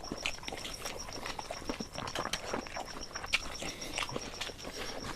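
Eating noises: irregular wet chewing and smacking clicks as rice and egg curry are eaten.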